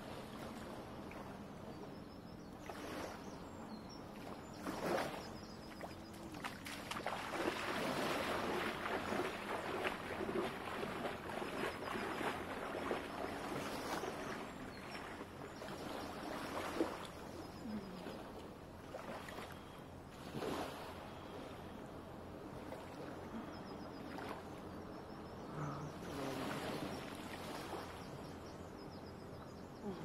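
Small waves of a calm sea lapping and sloshing at the shore, louder for several seconds in the middle, with a few brief splashes.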